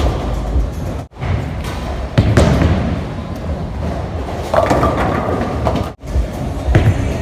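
Ten-pin bowling ball rolling down the lane and crashing into the pins, amid the din of a busy bowling alley. The sound cuts out briefly twice, about a second in and about six seconds in, where clips are joined.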